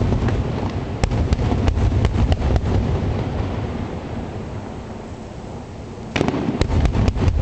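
Fireworks display: aerial shells bursting with a deep rumbling boom and sharp cracks, the rumble dying away over a few seconds. A fresh volley of booms and crackles starts about six seconds in.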